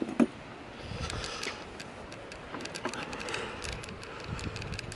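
Scattered light clicks and ticks of hand tools and small hardware being handled at an outboard's powerhead, with two sharper knocks just at the start.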